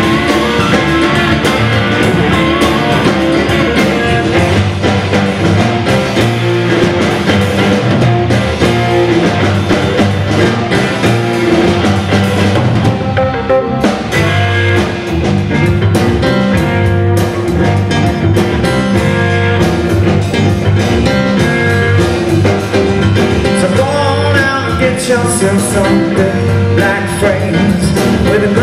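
Live blues-rock band playing an instrumental stretch: a Fender Telecaster electric guitar over bass, drums and keyboard, with the lead vocal coming back in near the end.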